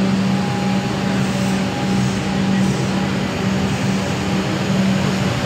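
Metro suburban electric train pulling out of an underground platform, its cars gathering speed past the listener, with a steady low hum over the rumble of the moving train.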